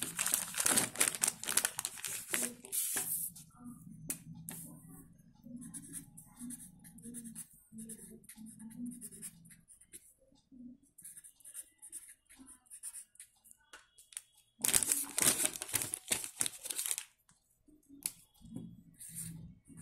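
Paper and card being handled, with loud rustling and scraping from the start for about three seconds and again about fifteen seconds in. Quieter crinkles and rustles come in between.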